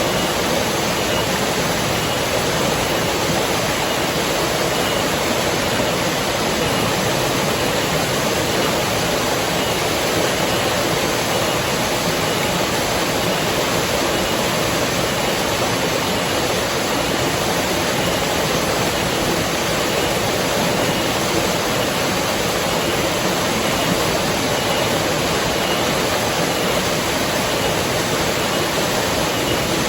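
River water rushing steadily, an even wash of sound with no breaks.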